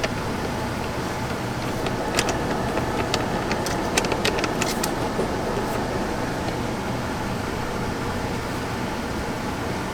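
Steady hum inside the Jeep Gladiator's cab with the vehicle on, with several light clicks and taps between about two and five seconds in as a universal phone holder is fitted to its mount.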